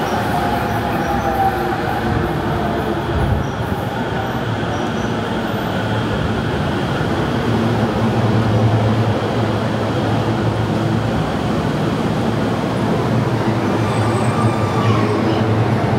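A JR Chuo-Sobu Line local electric train pulling into the station, with a steady rumble of wheels and motors and a faint falling whine at the start as it slows.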